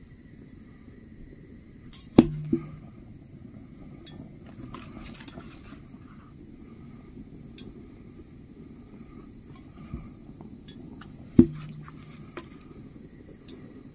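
Handheld blue-canister propane torch burning with a steady low rushing flame as it is played over the waxed stitching of a leather sheath. Two sharp clicks stand out, one about two seconds in and one about eleven seconds in.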